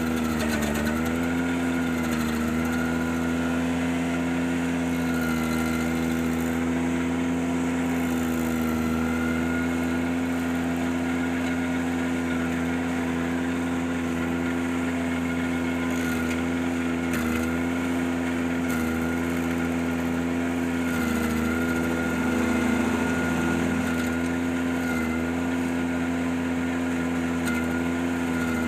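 Ventrac 4520Z tractor engine running steadily at high throttle while driving the stump grinder attachment. Its pitch sags briefly a few times, near the start and again midway through, as the engine comes under load.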